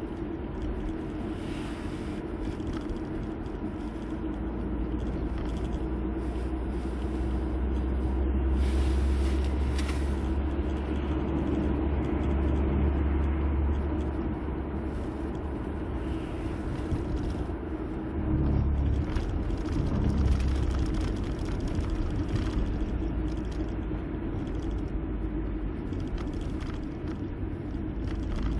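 Car cabin noise at expressway speed: a steady low rumble of tyres and engine heard from inside the moving car. It swells through the middle, with a couple of heavier low pulses about two-thirds of the way in.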